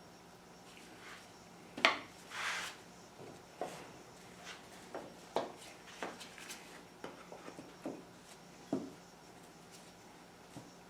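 Wooden workpieces being handled and set down: scattered light knocks and clicks, the loudest just under two seconds in, followed by a short scraping rub. The lighter clicks stop a couple of seconds before the end.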